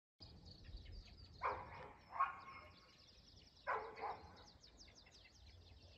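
A dog barking faintly: two pairs of short barks, over faint rapid high chirping.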